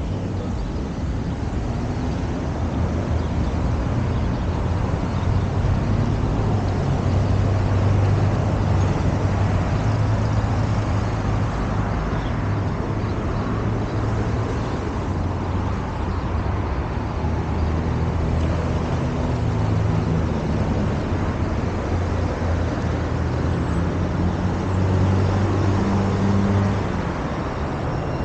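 Road traffic on a city street: a steady wash of vehicles with a low engine hum that swells twice, as a heavier vehicle runs close by.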